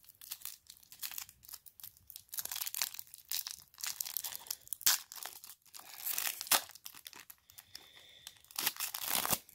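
Foil wrapper of a baseball card pack being torn open and crinkled by hand, in irregular crackling bursts, the loudest near the end.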